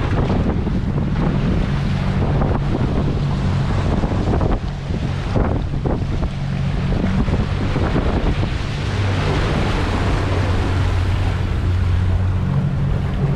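A small boat's engine running steadily at a constant speed while strong wind buffets the microphone and waves wash around the hull.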